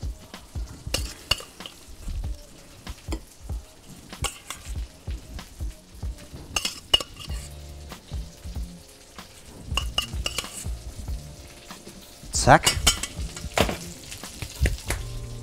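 Metal spoon clinking and scraping against a steel pot and plates as sweet potato purée is spooned out, with two louder knocks near the end, over breaded schnitzel sizzling in hot fat in a pan.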